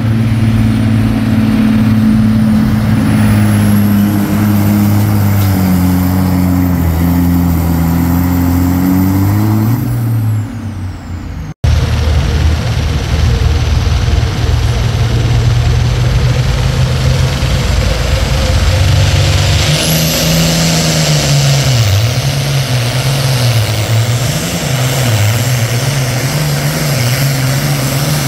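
Heavy diesel engines at a tractor pull. An engine drones and dips and rises in pitch, then cuts off abruptly about eleven seconds in. Another diesel then runs hard, a high whine rises in about twenty seconds in, and the engine pitch wavers up and down.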